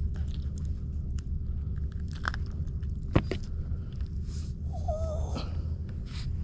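Wind rumbling steadily on the camera microphone over a faint steady hum, with a few short clicks and knocks, the sharpest about three seconds in, as a lure is worked out of a fish's mouth and the fish is handled.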